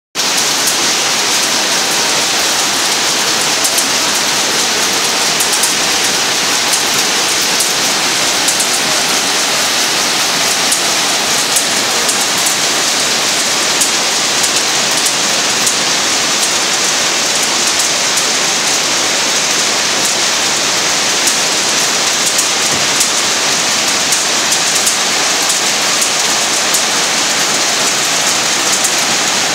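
Peanut cleaning machine running: a steady, dense rattle of peanuts shaking across its metal screening trays and pouring from a chute, with many sharp little clicks.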